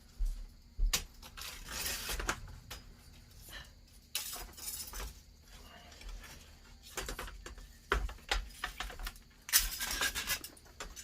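Old screen mesh being popped and pulled out of a window-screen frame: irregular clicks and light rattling of the frame, with a couple of longer rustling scrapes as the mesh drags free.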